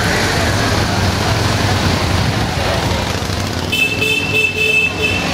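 Cruiser motorcycles running at low speed as they ride past in a line, a steady low engine rumble under crowd noise. About three and a half seconds in, a horn sounds and is held for over a second, its low note pulsing.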